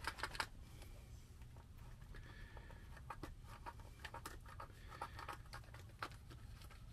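A metal wire poked and scraped into the nozzle of a caulk-gun tube of black silicone that has set solid in the tube. A quick run of clicks in the first half second, then faint scattered ticks and scrapes.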